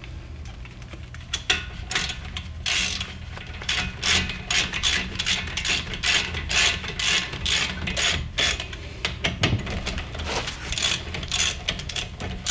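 Ratchet wrench clicking in quick, irregular runs of sharp ticks as it is worked back and forth.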